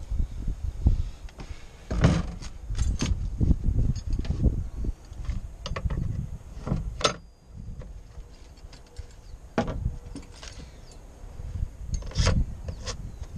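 Irregular knocks, clicks and clatter of a chainsaw and tools being handled on a car's metal tailgate, over a low rumble of wind buffeting the microphone.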